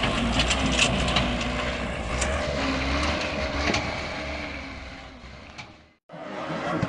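Engine of a dump truck stuck in mud, running under load, with scattered clicks and rattles. It fades and drops out about six seconds in.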